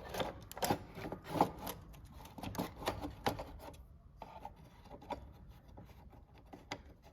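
Clicking, tapping and rubbing of hands working the switch panel up and out of a Bachmann Dash 9 model locomotive's shell, a quick run of clicks in the first few seconds, then sparser taps.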